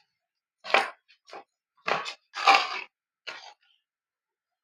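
Ice cream tub packaging, cardboard and plastic, being handled and opened in about six short rustling bursts over three seconds, then stopping.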